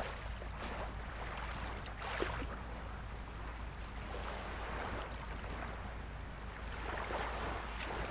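Ocean surf breaking and washing over shoreline rocks, a steady rushing noise over a low rumble, with louder surges about two seconds in and again near the end.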